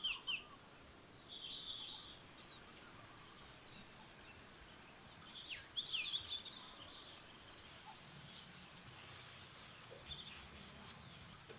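Quiet rural ambience: a steady high insect trill, likely crickets, with a few short bird chirps about a second and a half in, around six seconds in and near the end. The insect sound stops about two-thirds of the way through.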